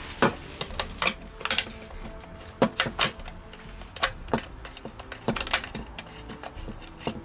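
Irregular clicks and knocks of an airsoft M4 and a Phillips screwdriver being handled while the stock's two retaining screws are loosened.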